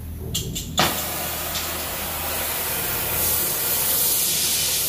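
Oxy-fuel cutting torch being lit: a sharp pop just under a second in, then the steady loud hiss of its gas and flame jet.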